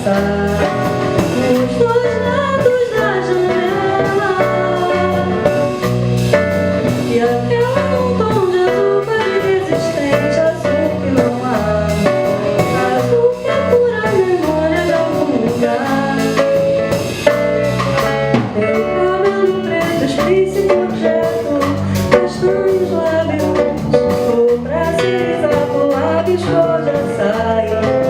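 A woman singing a Brazilian MPB song over acoustic guitar, bass and drum kit, with a smoothly gliding vocal melody over a steady rhythm.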